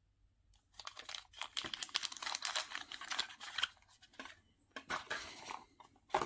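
Small accessory parts and their plastic packaging being handled: a dense run of crinkling and clicking for about three seconds, then a few shorter bursts.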